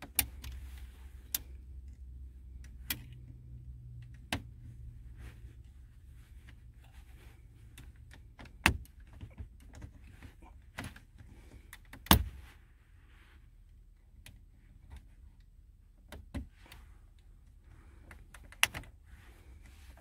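Irregular sharp plastic clicks and knocks as a removal tool hooked on a Toyota Tacoma's push-to-start button is pulled and worked against the dash trim, about nine in all, the loudest about twelve seconds in. A low steady hum lies underneath.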